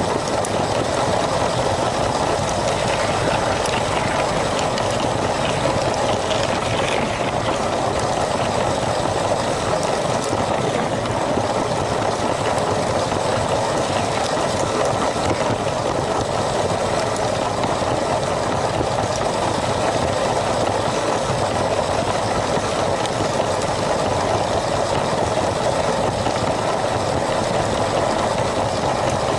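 LEGO train's small electric motor and plastic wheels running steadily along plastic track, a continuous whirring and rattling.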